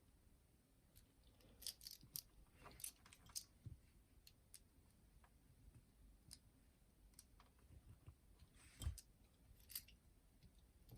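Near silence broken by faint, scattered clicks and small taps of hands working on a boombox's cassette mechanism while fitting its rubber drive belts, the loudest tap about nine seconds in.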